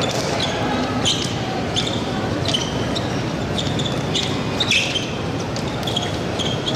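Fencers' shoes squeaking and clicking on the piste during an épée bout: irregular short, high squeaks a second or so apart, over a steady murmur of hall noise.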